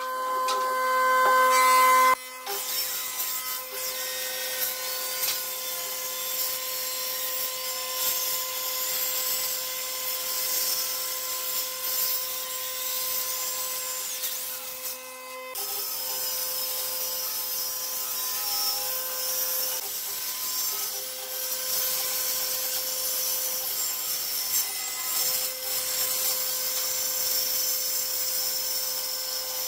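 Dekton handheld circular saw running and cutting through wooden boards: a steady motor whine with the hiss of the blade in the wood. A louder, rising stretch in the first two seconds breaks off abruptly, and there is a brief drop about halfway through.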